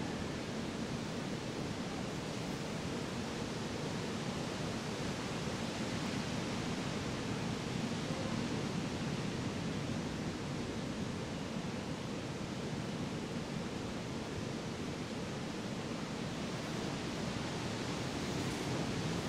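Steady, even rushing noise with no distinct events, fuller in the low range.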